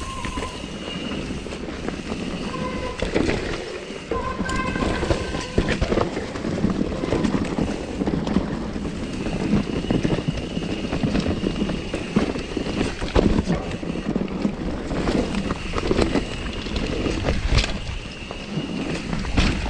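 Mountain bike disc brakes squealing: a high, steady whistle that comes and goes several times under braking, the longest squeal lasting a few seconds around the middle. Under it run the rumble and rattle of tyres and bike over a rough trail, with wind on the microphone.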